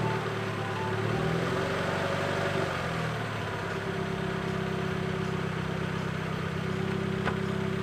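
Daihatsu Copen running steadily, with a faint tone that rises and then falls in pitch over a couple of seconds.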